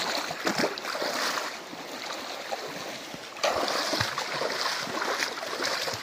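Feet wading through a shallow stream, water sloshing and splashing around the legs with irregular small splashes, louder from about three and a half seconds in.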